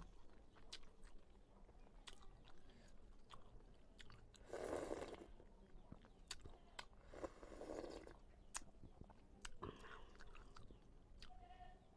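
Close-miked eating: soup slurped off a spoon twice, about five and seven and a half seconds in. Between the slurps come wet mouth clicks and chewing smacks.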